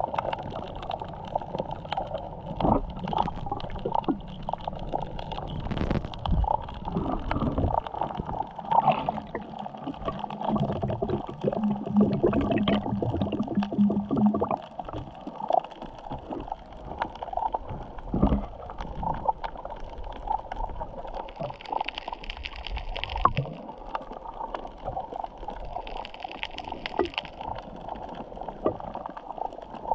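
Muffled underwater gurgling and sloshing picked up by a camera held under the water, with many scattered small clicks and knocks.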